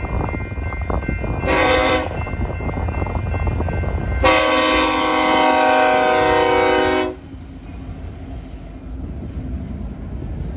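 Horn of Union Pacific 1982, an EMD SD70ACe locomotive in Missouri Pacific heritage paint, sounding for a grade crossing: a short blast about one and a half seconds in, then a long blast from about four to seven seconds. Under it and after it, the locomotive's diesel and the wheels of the passing train rumble steadily.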